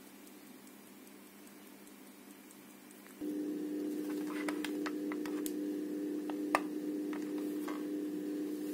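Faint room noise, then from about three seconds in a steady low hum with a handful of light plastic clicks from a handheld dosimeter being handled and its button pressed, the sharpest click about six and a half seconds in.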